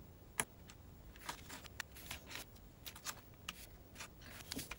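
Cardstock being handled and pressed down by hand on a table: a few faint paper rustles and light taps.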